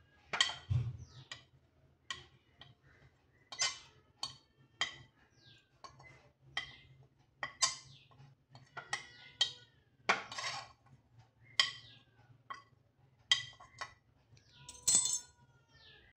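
A metal spoon repeatedly clinks and taps against a stainless-steel mixer-grinder jar and the edge of a plate while spice powders are scraped into the jar. The clinks come irregularly, roughly one or two a second, some ringing briefly.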